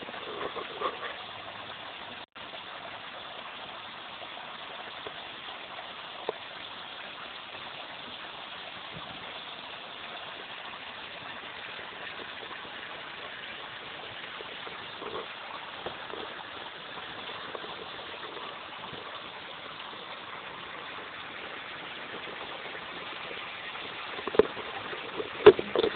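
Steady rush of spring water flowing, heard through a phone's microphone, with a few knocks near the end.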